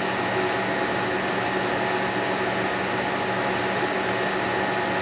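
Steady machine drone with a hiss underneath, unchanging throughout, from background machinery such as a compressor or ventilation.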